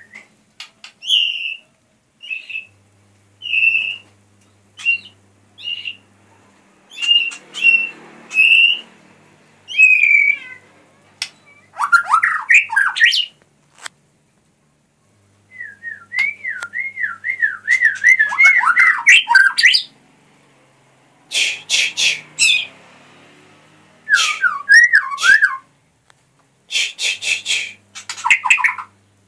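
White-rumped shama (murai batu) singing: a string of short clear whistled notes, then rapid warbled trills that swing up and down in pitch, broken by harsh chattering bursts and short pauses.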